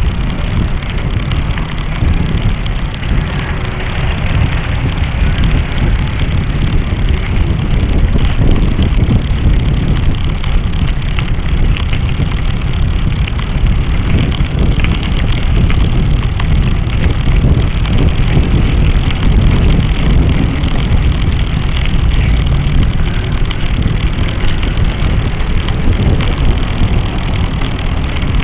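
Wind buffeting and road rumble picked up by a small action camera mounted beside a bicycle's front wheel while riding: a loud, steady low rumble with frequent small knocks and rattles from the rough pavement.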